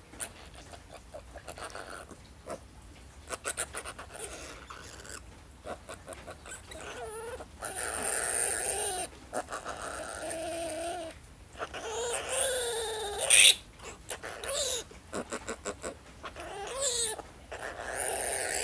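Male piglet squealing in distress while it is restrained and castrated with a small blade, a run of long, wavering cries that starts about a third of the way in and is loudest about two-thirds through. Before the squealing, light clicks and rustles of handling.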